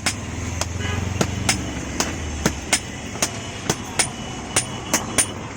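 Blacksmith's hammer striking metal on an anvil, about a dozen sharp blows at an uneven pace of roughly two to three a second, with a faint metallic ring between strikes. A low hum sounds under the blows for the first two seconds.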